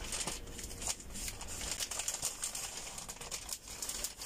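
Plastic parcel wrapping rustling as it is handled and pulled open, with a few soft scattered clicks.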